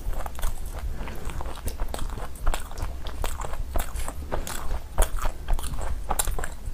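Close-miked chewing and crunching of crisp pani puri shells: a dense run of irregular crackles and crunches, over a steady low hum.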